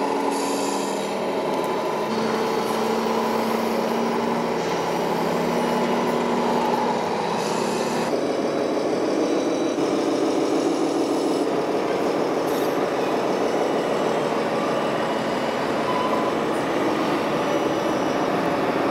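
Engine sounds from radio-controlled model trucks, a steady simulated truck engine running from their sound units, with the tone changing about eight seconds in, over the constant hubbub of an exhibition hall.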